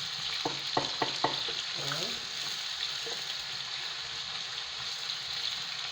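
Onions frying in hot palm oil in a pot, a steady sizzling hiss, with a few sharp taps of the stirring spoon against the pot in the first second and a half.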